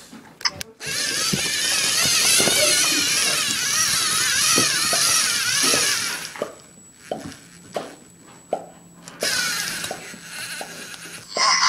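Small electric motors of a LEGO NXT tracked robot whining as it drives, the pitch wavering up and down, for about five seconds. Then comes a run of light separate knocks and clicks, and the wavering whine returns near the end.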